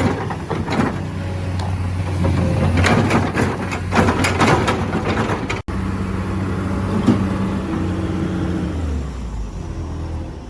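Heavy construction machine's engine running steadily, with a quick run of knocks and rattles about three to five seconds in. The sound breaks off suddenly partway through and the engine picks up again, its pitch dropping near the end.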